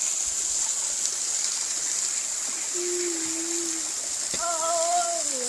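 Waterfall rushing and splashing, a steady hiss of falling water. A person's voice sounds briefly about halfway through and again near the end.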